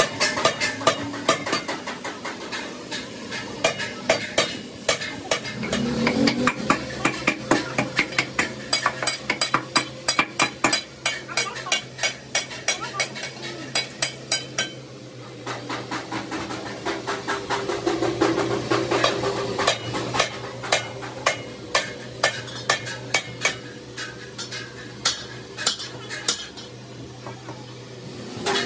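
A hand tool worked against the rubber inside a large tractor tire: runs of quick, sharp scraping strokes at about three a second, pausing briefly about halfway through and again near the end. A steady low hum runs underneath.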